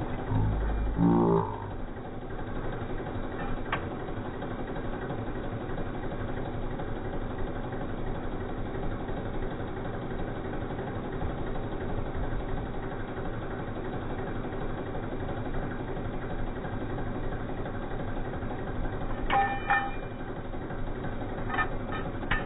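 Construction machinery engine running steadily at a street dig. About a second in, a brief louder rising tone, and near the end a few short sharp clinks.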